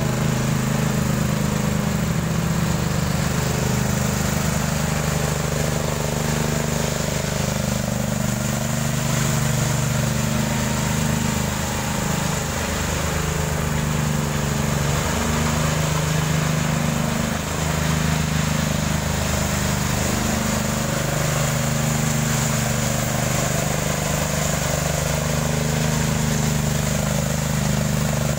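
Ride-on double-rotor power trowel running steadily, its engine turning the trowel blades over a concrete slab as the floor is smoothed.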